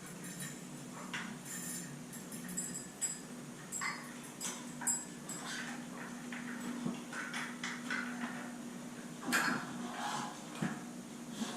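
Scattered light clicks, taps and clatter of small hard parts being handled while a ceiling fan's light kit is fitted after its wires are joined, with a stronger burst of clatter about nine seconds in.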